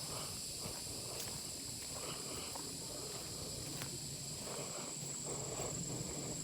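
Footsteps of a hiker walking along a woodland trail, about two steps a second, over a steady high-pitched drone of insects.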